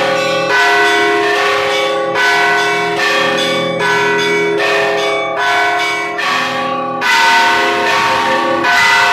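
Russian Orthodox church bells rung in a peal: several bells of different pitches struck one after another, about one strike a second, each tone ringing on into the next.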